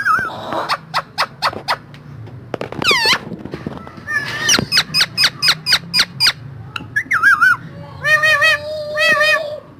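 Ringneck parakeet calling: a string of sharp chirps, a falling whistle about three seconds in, a quick run of chirps in the middle, and wavering whistled calls near the end.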